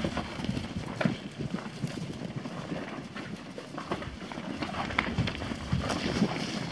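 Hoofbeats of a herd of Holstein dairy cows running across a grass pasture: many irregular thuds overlapping one another.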